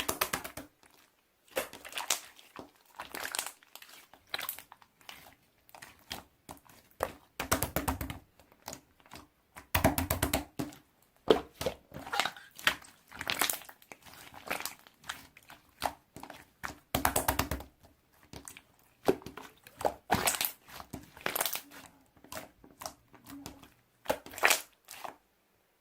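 Hands crinkling and crackling plastic in irregular bursts, some longer and louder, with short pauses and a few soft thunks between them.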